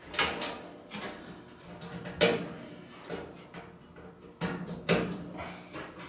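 A handful of short clicks and light knocks as wire spade connectors are pushed onto the terminals of a clothes dryer's thermostat, with hands bumping the sheet-metal cabinet.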